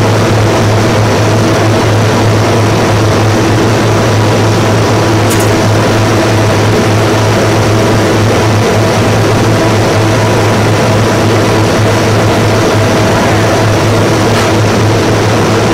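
Steady, loud drone of heavy factory machinery: a strong low hum with a few steady tones over an even rushing noise, unchanging throughout.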